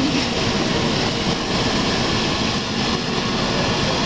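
Air ambulance helicopter running on the ground after landing: a steady, loud whine of turbine engines and rotor.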